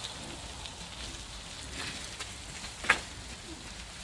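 A single sharp clack of bicycles colliding about three seconds in, over a steady crackling noise.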